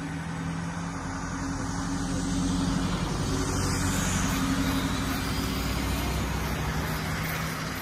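Motor vehicle engine running with a steady low hum, growing louder through the middle and easing off slightly near the end.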